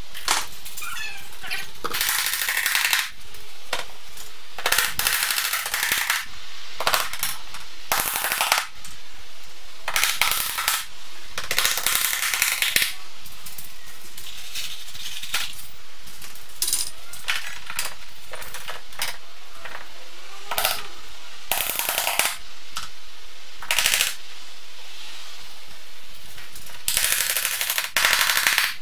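Power tool fastening wooden furring strips to a concrete garage wall in a dozen or so short, loud bursts spread unevenly.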